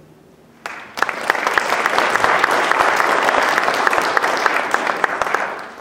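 Audience applauding: a dense patter of many hands clapping that starts about a second in after a brief hush and fades away near the end.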